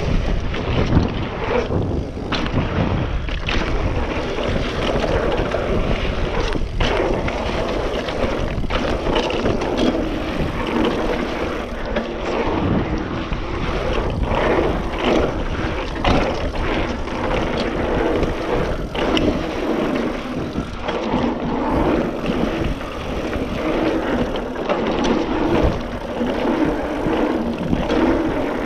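2019 Trek Roscoe 8 27.5-plus mountain bike ridden fast downhill on a dirt trail: tyres rolling on packed dirt with frequent rattles and knocks from the bike over bumps, and wind rushing over the microphone.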